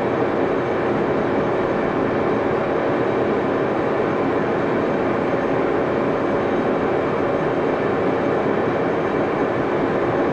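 Axelson metal lathe running under power: a steady mechanical hum with a stack of gear tones that does not change.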